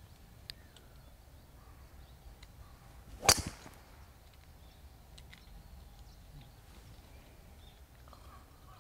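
A golf club striking a ball: one sharp crack about three seconds in, with a brief ring after it.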